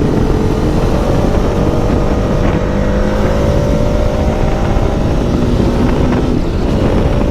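Motorcycle engine running under way, its pitch rising slowly as the bike gains speed, with heavy wind rumble on the microphone. The bike has just been serviced and is running smoothly.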